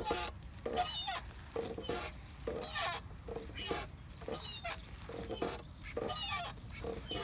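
Playground swing squeaking at its dry, unoiled pivots as it swings back and forth, a squeal that slides in pitch at about every second, the louder one about every two seconds.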